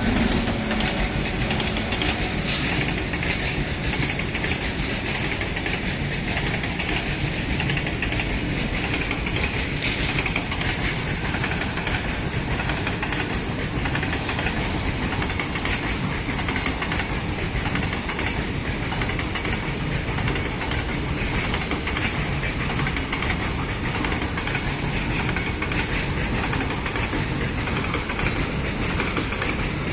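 Goods train hauled by a WAG-9 electric locomotive passing by, its wagon wheels running steadily over the track.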